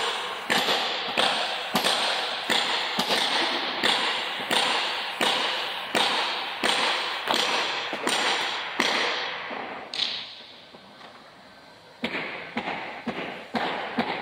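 Regular sharp knocks, about one and a half a second, each trailing off in a short ring. They stop for about two seconds near the end, then come back as lighter, quicker taps.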